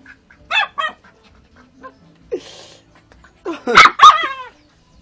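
Dog barking in short yips: two quick ones under a second in and two louder ones about four seconds in, with a brief hiss in between.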